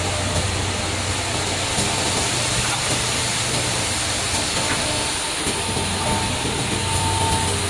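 Automatic double-sided sanding and polishing line for hand saw blades running: a steady, loud machine noise with a low hum, and a faint steady whine that grows a little stronger near the end.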